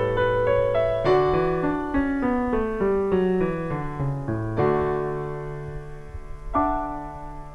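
Solo piano music: a run of notes stepping down over a held bass note, then two sustained chords struck about two seconds apart.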